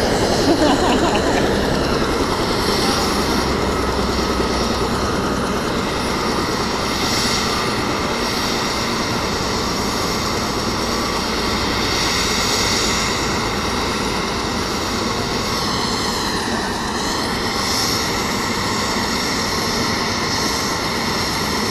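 Helicopter running on the ground with its rotor turning: a steady engine whine and rotor noise, which dips briefly in pitch about sixteen seconds in.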